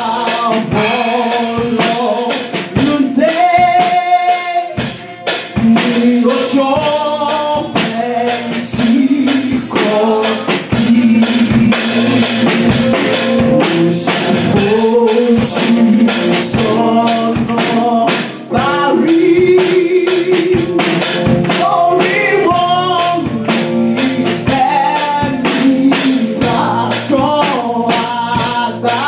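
Women's voices singing a gospel worship song into microphones, with a steady drum beat.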